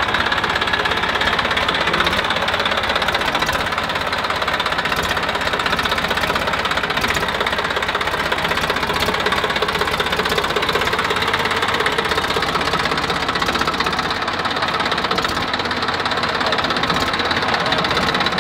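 Massey Ferguson tractor's diesel engine running steadily as the tractor creeps forward onto a sheet of glass.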